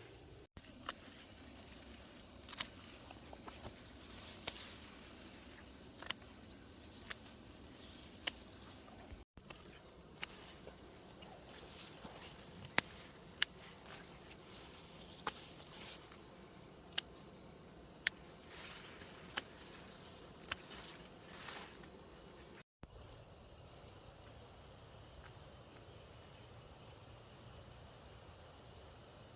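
Steady high chirring of insects, with scattered sharp knocks every second or two that stop a little past two-thirds of the way through. The sound drops out briefly twice.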